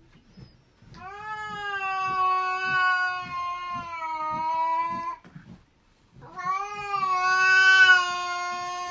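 A cat yowling: two long, drawn-out calls of about four and three seconds, each holding a fairly steady pitch that sags slightly, with a short pause between them.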